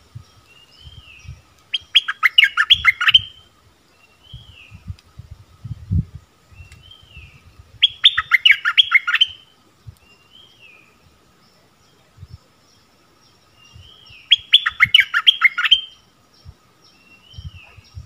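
Bulbul singing: three bursts of rapid, chattering song about six seconds apart, with short falling call notes in between. Scattered soft low thumps are heard under the calls.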